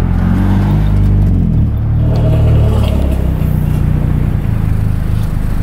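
Honda Civic Si's K20 four-cylinder engine running through a K-Tuned aftermarket exhaust. Its pitch rises, then falls back over the first two seconds, then settles into a steady lower exhaust note.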